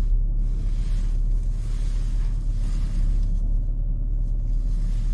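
Audi A4 B6's 2.5 TDI V6 diesel car on the move, heard inside the cabin: a steady low rumble of engine and road, with a hiss that swells and fades several times over the uneven street.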